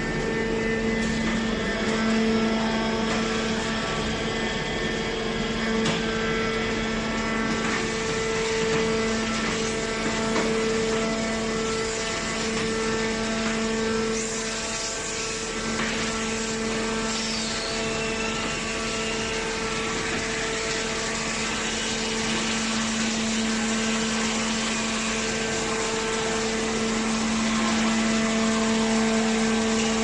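Hydraulic scrap metal baler running, its power unit giving a steady pitched hum over general machine noise.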